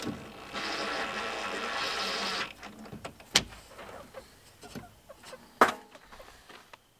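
Cordless drill running steadily for about two seconds while driving a screw to fix an aluminium channel gutter, then two sharp knocks about two seconds apart.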